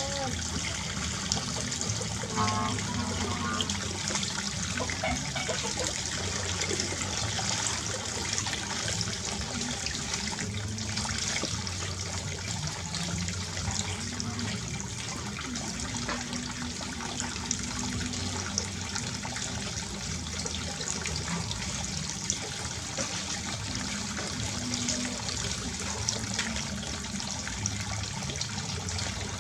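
Water running steadily from a tap and splashing, as in a bath being run or a rinse under the tap.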